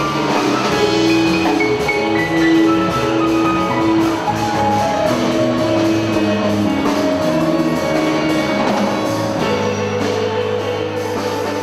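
A jazz quartet playing live: piano, bass and drums in an instrumental number, with a run of held melody notes shifting in pitch.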